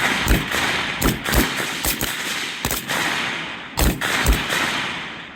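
Several C7A2 5.56 mm assault rifles firing single aimed shots at an irregular pace, shots from different shooters overlapping, about a dozen in all, each with an echoing tail.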